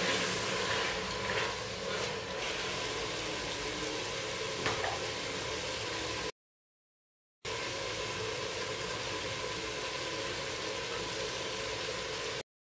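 Tomato-based vegetable curry sizzling steadily in a steel pot on a wood-burning stove, with one faint knock about halfway through. The sound cuts out to silence twice, briefly.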